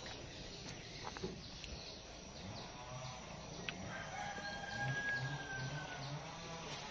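Rooster crowing faintly, one long drawn-out crow about four seconds in, with quieter calls around it.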